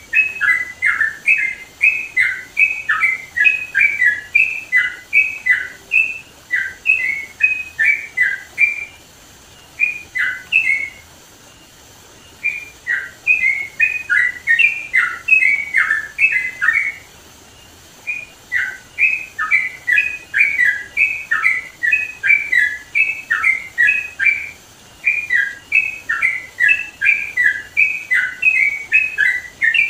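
Yellow-vented bulbul (trucukan) singing loudly, with long runs of quick, bubbly chattering notes and two short pauses.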